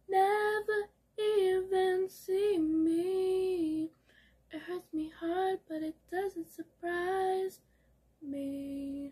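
A woman singing unaccompanied in short phrases, ending with one held lower note near the end.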